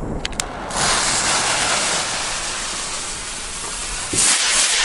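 Small ABA Blitz & Donner firework rocket: its lit fuse hisses steadily for about three seconds, then the rocket motor ignites about four seconds in with a louder, sharper hiss as it lifts off, cutting off abruptly.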